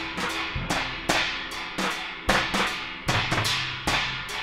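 Recorded small-band jazz: a drum kit with irregular drum and cymbal hits over held low bass notes.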